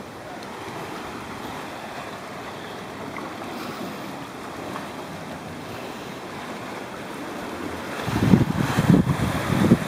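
A steady outdoor wash of wind and sea. About eight seconds in, gusts of wind start buffeting the microphone in loud, irregular low rumbles.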